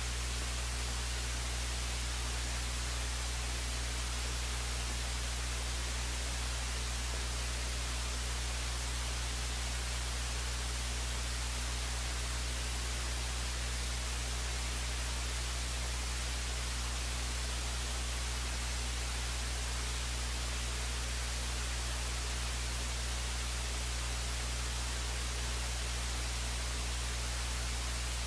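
Steady low electrical hum with constant hiss, unchanging throughout: line noise on an audio feed with no programme sound.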